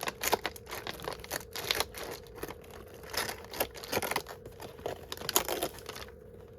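Paper and plastic packaging being crinkled and torn open by hand in irregular bursts of crackling that die away about six seconds in.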